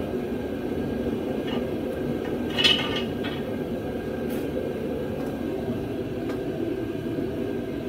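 A steady low mechanical drone, with a few light clicks and one brief louder handling sound about three seconds in.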